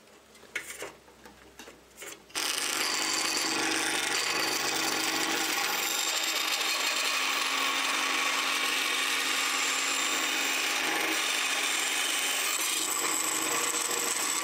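A few light clicks of wood being handled, then a small band saw running and cutting a thin strip of wood, a steady hiss that starts abruptly about two seconds in.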